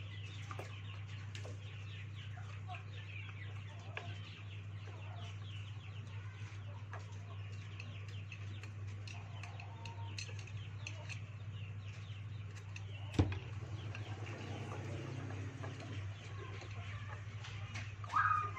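Chickens clucking and chirping in short falling calls over a steady low hum, with one sharp click about thirteen seconds in and a longer falling call near the end.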